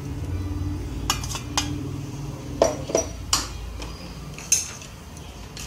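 A steel mixer jar knocking against an aluminium kadhai as ground dal powder is shaken out of it: about six sharp metal clinks, the loudest in the middle, over a steady low hum.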